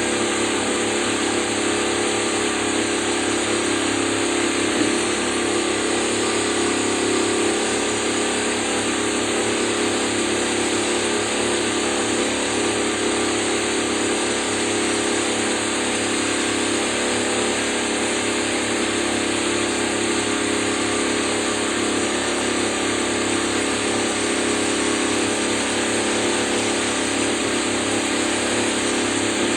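An engine running at a steady speed, a constant unbroken drone.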